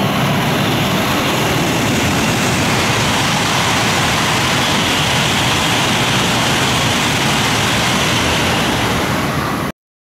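E5 series shinkansen bullet train running through a station: a loud, steady rush of wheel, track and air noise as the cars go by. It cuts off abruptly near the end.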